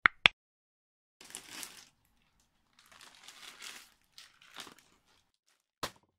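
Two sharp mouse-click sound effects a moment apart, then three bouts of crinkling, rustling handling noise, and a single short click near the end.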